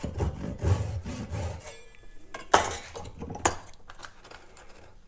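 A few gentle back-and-forth hand-saw strokes rasping in a slot in a pen-blank handle, the last cuts that bring the slot for a lock pick's tang down to the line. About two and a half seconds in come two sharp knocks about a second apart, then it goes quieter.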